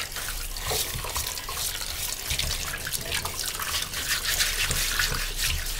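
Running tap water splashing into a kitchen sink as hands scrub a singed goat's head under the stream, rubbing off the burnt skin. A steady rush of water with irregular splashes and drips.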